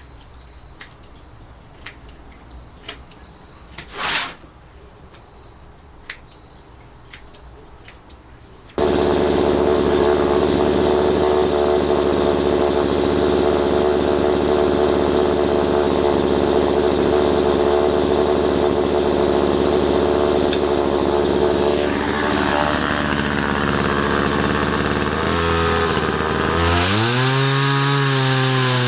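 Faint scattered clicks, then a power saw starts abruptly about a third of the way in and runs steadily while cutting wood, its pitch dropping and recovering near the end as it takes the load.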